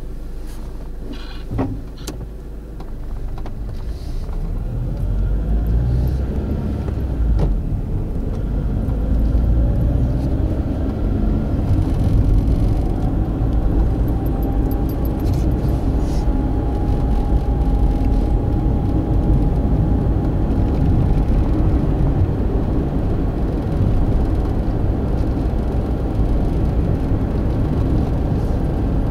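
Car driving on a winding road: a steady low engine and tyre rumble that grows louder over the first few seconds, with a few sharp clicks near the start.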